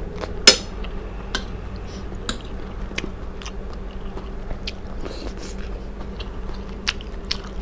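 Close-up chewing and mouth sounds of a person eating a spoonful of rice, with scattered small clicks and a sharp click about half a second in, over a low steady hum.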